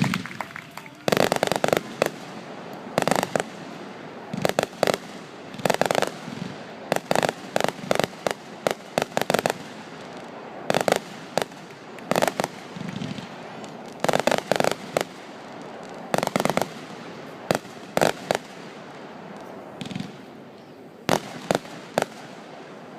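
Aerial fireworks going off in quick volleys of sharp bangs, often several in a row within a second, with crackling between them.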